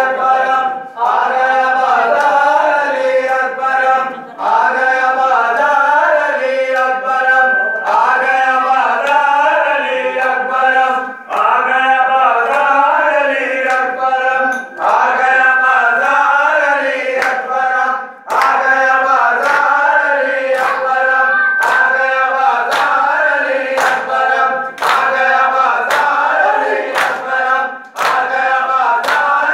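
A group of men chanting a mourning lament (nauha) in unison, in phrases of a few seconds. Sharp slaps of hands beating on chests (matam) keep time about once a second, plainest in the second half.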